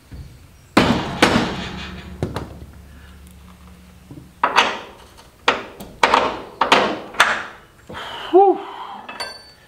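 Irregular sharp metal clanks and knocks, about eight in all, as a rear trailing arm is worked into its mount on the truck frame and bolted up with a wrench. Near the end a man breathes out a tired "whew".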